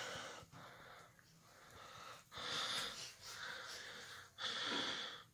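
Boa constrictor hissing: a few drawn-out, breathy hisses, each about a second long. The loudest come in the second half.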